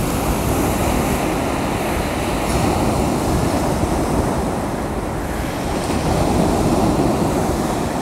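Sea of Azov surf washing onto a sandy beach: a steady rushing noise that swells slightly now and then, with wind rumbling on the microphone.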